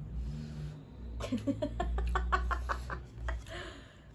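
A person laughing: a quick run of short voiced bursts, about five a second, starting about a second in and lasting about a second and a half.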